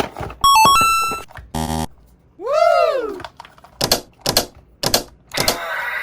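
A string of short electronic sound effects. It opens with a quick tune of stepped beeps, then a brief buzz, then a whistle-like tone that rises and falls. Four sharp clicks follow, evenly spaced about half a second apart.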